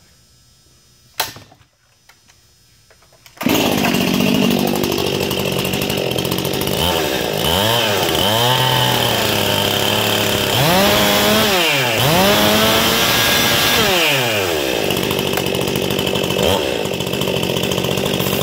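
Stihl chainsaw with a Buckshot test muffler starting up: a short burst about a second in, then the engine catches and runs, revved up and down several times in the middle, and cuts off abruptly at the end.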